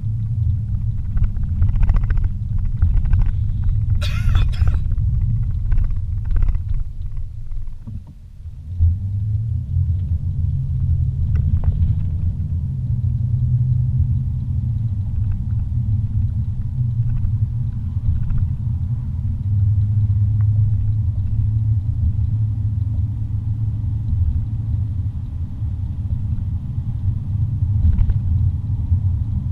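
Car driving, heard from inside the cabin: a dense, steady low rumble of engine and road. It dips briefly about eight seconds in, then settles into a steady engine hum. A brief sharp noise stands out about four seconds in, among a few faint clicks.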